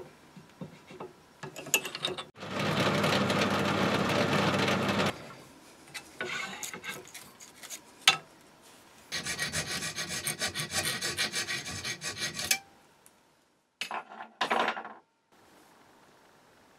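Pillar drill running and cutting into a metal column, a steady whirr with cutting noise for about three seconds. A few seconds later comes a stretch of fast, scratchy rubbing strokes, then a few light handling clicks.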